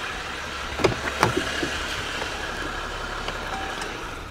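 Steady running noise of a motor vehicle that slowly fades, with two sharp clicks about a second in.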